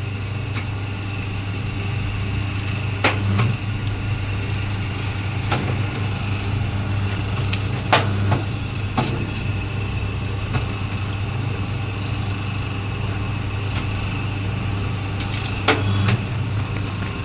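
Double-die paper plate making machine running: a steady low motor hum, with a dozen or so sharp, irregular clacks as the dies press and release the plates.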